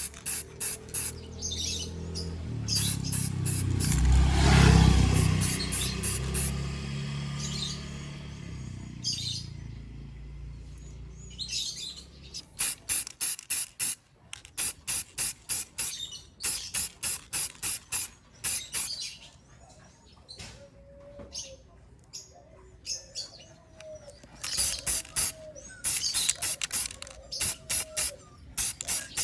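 Aerosol spray can of gloss clear top coat hissing in short bursts, in quick runs of several bursts at a time, as heavy final coats go on. A low rumble swells and fades in the first several seconds.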